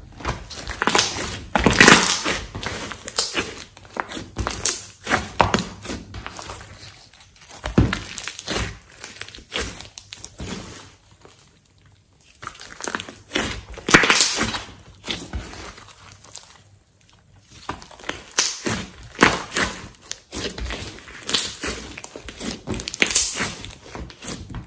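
Glossy slime being stretched, folded and pressed by hand, making sticky crackling pops and clicks. The pops come in clusters a few seconds long with short quieter pauses between them.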